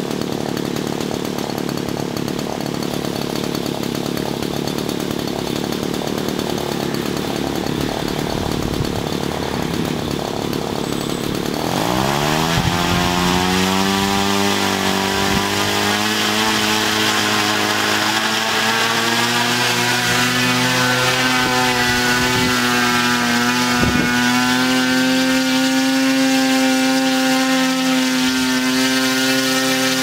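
Small engine of a homemade multirotor aircraft running rough and low, then about twelve seconds in it revs up quickly to a steady high pitch that creeps a little higher as the rotors spin up to lift the craft off the ground.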